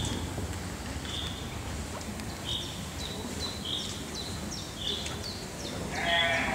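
Short, high bird chirps repeating about once a second, with a sheep bleat near the end.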